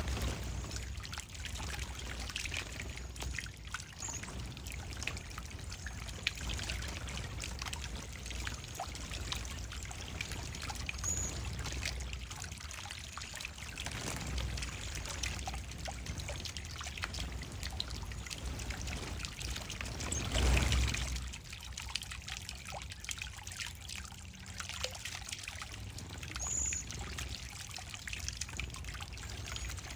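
Water trickling steadily in a bird bath, with small splashes from bathing cedar waxwings and a brief louder rush of water about two-thirds of the way through. A few faint, short, very high thin calls, typical of cedar waxwings, sound over it now and then.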